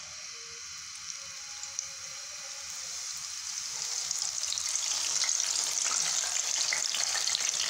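Bhujia dough strands of gram flour and mashed potato sizzling in hot ghee as they are pressed from a sev press into the pan, with small crackling pops. The frying gets steadily louder about halfway through as more dough hits the fat.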